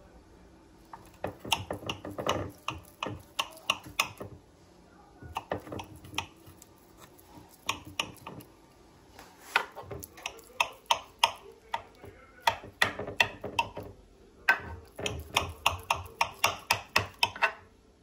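Metal knife cutting through soft barfi in a glass baking dish, its blade clicking against the glass bottom in runs of quick sharp taps with short pauses between.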